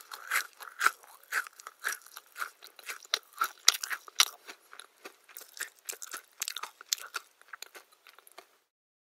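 Close-up crunchy chewing of a crisp food: a bite at the start, then crunching chews about two a second that grow weaker near the end.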